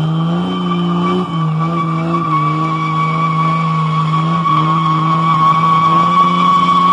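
A car doing a burnout: its engine held at high revs while the spinning rear tyre squeals on the pavement. The revs dip briefly a few times, and the squeal grows louder toward the end.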